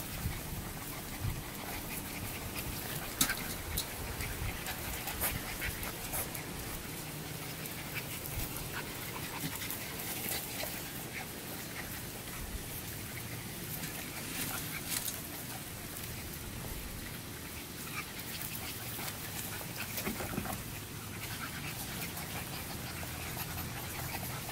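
A litter of boxer puppies playing and feeding: scattered small puppy sounds and panting over many light clicks and scuffles.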